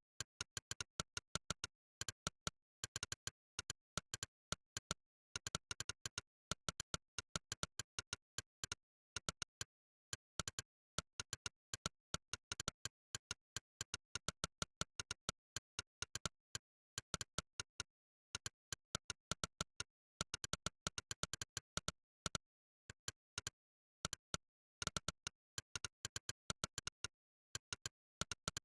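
Monkeytype's 'click' keypress sound effect, one short sharp click per keystroke. The clicks come in fast, irregular runs of several a second as words are typed, with brief pauses between runs and dead silence between clicks.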